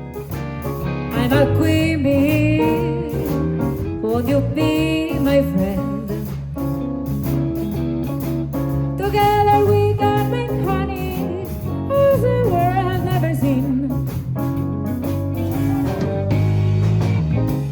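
Live band of piano, guitar, bass guitar and drum kit playing a slow jazz-blues song, with a woman singing a wavering melody over it.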